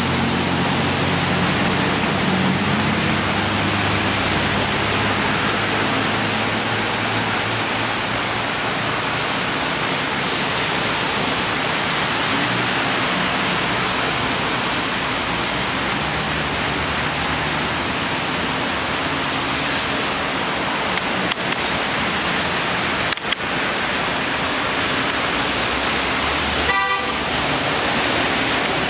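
Heavy rain hissing steadily, with vehicles passing on the flooded road; an engine hums low for the first few seconds, and a vehicle horn gives a short toot near the end.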